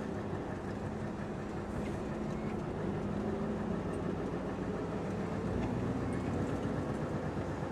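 Truck's diesel engine running as the lorry drives slowly, heard from inside the cab: a steady low drone whose pitch shifts slightly.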